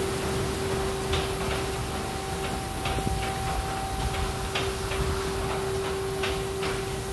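Automatic soft-cloth tunnel car wash running: spinning cloth brushes slap against a car in irregular strokes, over a steady hum from the wash machinery.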